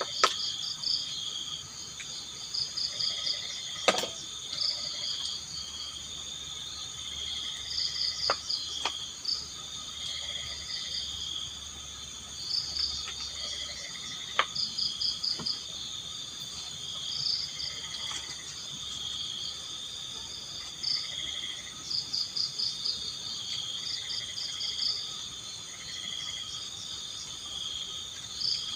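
Night insect chorus of crickets chirping in quick pulsed trains over a steady, high insect drone, with a few sharp clicks scattered through it.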